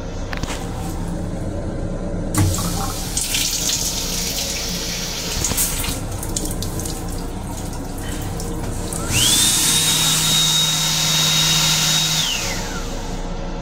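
Water running from a train restroom sink faucet in the first half. About nine seconds in, the sink unit's hand dryer blower spins up with a rising whine, runs steady with a rushing hiss for about three seconds, then winds down.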